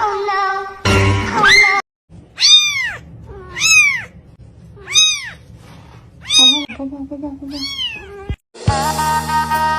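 Cat meowing five times in a row, about one meow every second and a bit, each rising and then falling in pitch.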